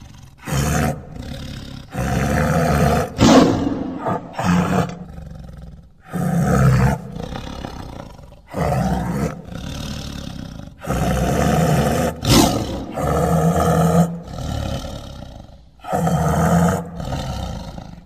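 Tiger roaring and growling: about a dozen deep roars in quick succession, each lasting about a second, with short pauses between them.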